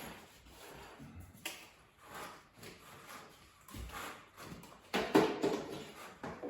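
Window blind being handled and lowered: a series of light clicks and rattles, loudest in a cluster about five seconds in.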